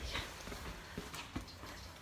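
A few light footsteps: separate soft knocks about a second apart.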